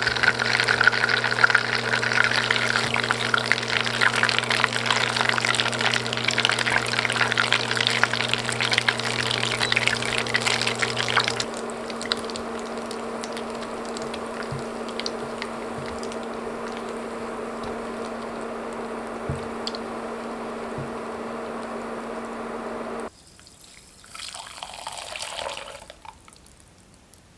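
Butter bubbling and crackling in a pot as it is browned into brown (hazelnut) butter: loud, dense crackling for about the first eleven seconds, then a softer sizzle. Near the end, after a sudden drop, a brief trickle as the brown butter is poured through a metal mesh strainer.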